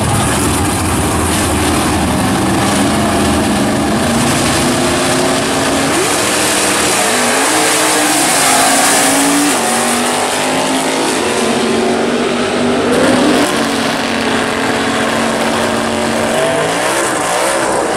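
Drag-racing cars launching at full throttle and running down the strip, their engines climbing in pitch and dropping back at each gear change. Near the end, another car's engine revs up hard during a smoky burnout.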